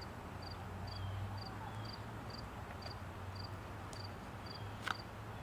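An insect chirping steadily, about two short double chirps a second. About five seconds in comes a single sharp knock as wood is beaten on the pocket knife to split a stick down thinner.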